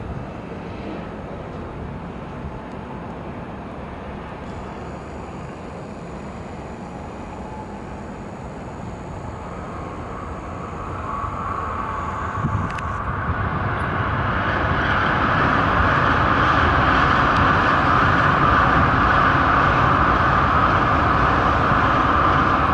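A 16-car Shinkansen bullet train running along an elevated viaduct: a steady rushing noise that swells from about ten seconds in and holds at its loudest through the last several seconds as the train passes.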